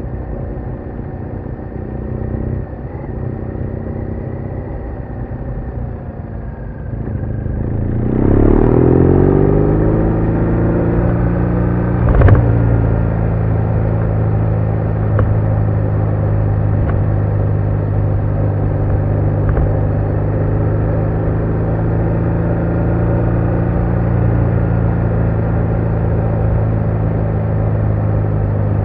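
BMW R1200R flat-twin motorcycle engine running on the road, the recording made on the bike. About eight seconds in it grows louder and its pitch drops and settles; a single sharp knock comes a few seconds later, then the engine runs on at a steady cruise.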